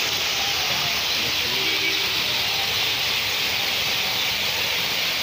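A steady, even hiss with no change in level, and faint distant voices underneath.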